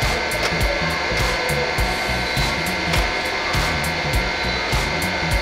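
Steady whir of a hydraulic press's motor and pump running, with light clicks of hard plastic pen cases being set down and stacked.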